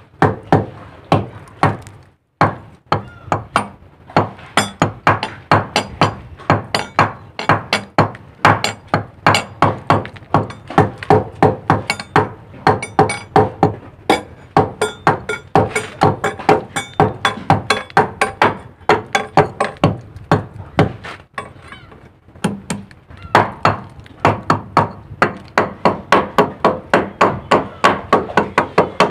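Hand hammer striking a chisel against rusty steel in quick, regular blows, about three to four a second, with two brief pauses.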